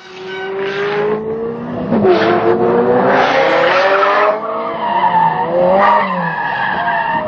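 Car engine revving hard, its pitch climbing over a few seconds and then falling about six seconds in, with tyres squealing in several bursts during the first four seconds.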